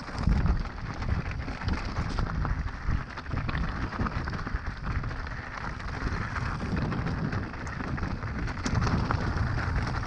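Mountain bike riding down a rough trail: wind buffeting the camera microphone as a steady low rumble, with tyres rolling and small rattles and clicks over stones.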